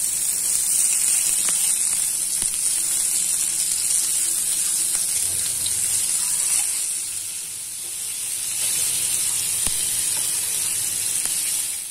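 Masala-marinated fish steaks shallow-frying in hot oil in a pan, a steady sizzle that dips briefly past the middle. A metal spatula gives a few light clicks and scrapes as the pieces are turned over.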